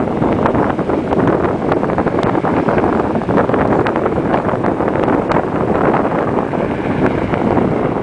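Wind buffeting the microphone: a loud, steady rush with scattered crackles.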